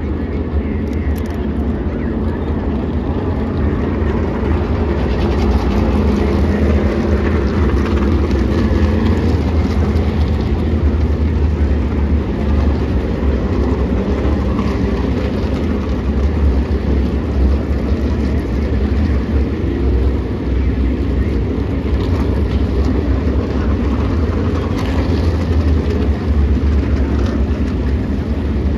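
A field of Tour modified race car engines rumbling steadily at low pace speed behind the pace car, one continuous loud drone with no sharp events.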